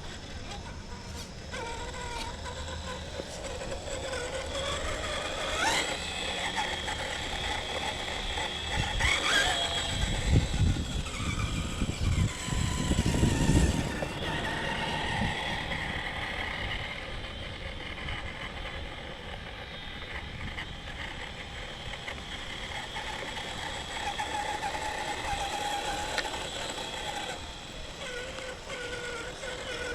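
RC crawler's Holmes Hobbies 13-turn 3-slot 550 brushed motor and drivetrain whining, the pitch rising and falling as the throttle changes. A louder low rumble comes in for a few seconds about ten seconds in.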